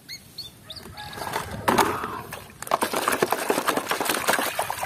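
Water sloshing and splashing in a plastic basin as a hand scrubs a muddy toy through it, picking up about a second and a half in and going on in quick irregular splashes.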